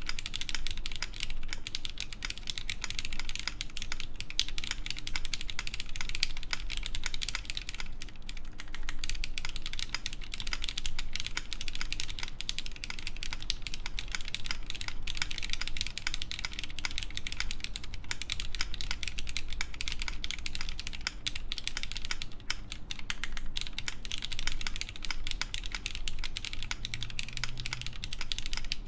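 Typing on a Fox Lab Time65 mechanical keyboard with lubed Cherry MX Black linear switches and GMK keycaps on a full aluminium plate with no foam. The keys clack in a fast, continuous stream of strokes.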